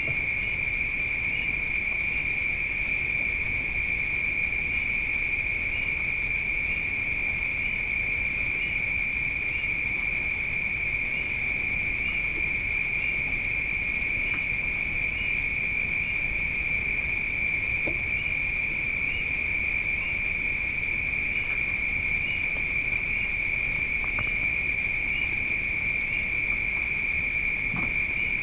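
Crickets trilling in a steady, unbroken night chorus.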